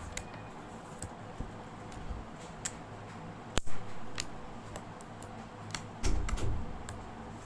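Homemade glue-and-activator slime being kneaded and pressed by hand, giving scattered small clicking pops, with one sharp snap about halfway through and a dull thump near the end.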